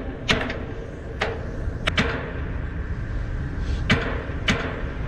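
A few sharp, irregular metallic knocks on a ship's steel deck and fittings, a pair close together about two seconds in, over a steady low rumble.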